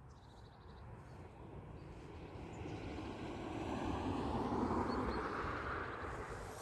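A passing engine, its rushing noise swelling to a peak about four to five seconds in and then fading away.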